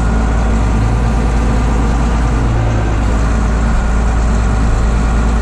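John Deere 8520 tractor's six-cylinder diesel engine running steadily with a constant low drone.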